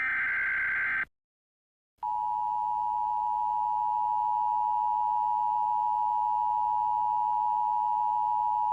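Emergency Alert System alert signal: the last burst of the digital data header, a buzzy warbling sound lasting about a second, then about a second of silence before the steady attention tone starts and holds without a break.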